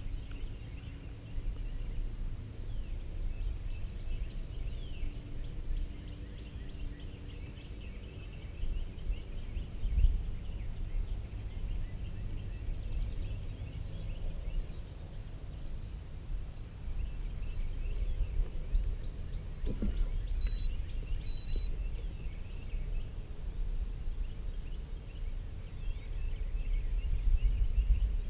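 Outdoor ambience: a low, uneven rumble of wind on the microphone, with faint bird chirps throughout and a single sharp knock about ten seconds in.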